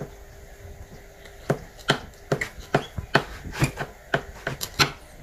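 A metal fork and a boiled pork joint knocking against a plastic cutting board as the meat is handled: about a dozen sharp, irregular taps, starting about a second and a half in.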